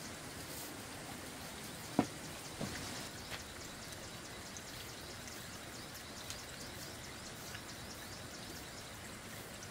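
Faint, fast ticking over a steady background, with one sharp knock about two seconds in and two lighter knocks soon after.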